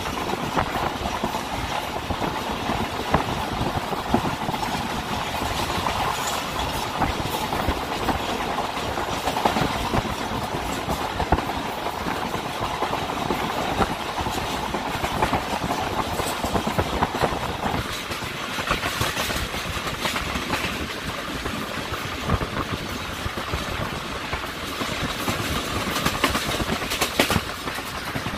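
Passenger train running at speed, heard from aboard: a steady rumble of wheels on the track with frequent clacks over rail joints. A humming note in the noise drops away about two-thirds of the way through.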